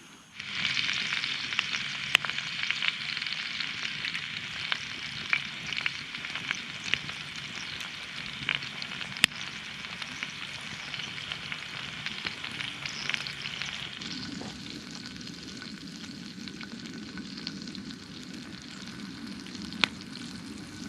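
Food frying in a skillet: a steady sizzle with many sharp pops, starting abruptly just after the start. A deeper rumble comes in about two-thirds of the way through.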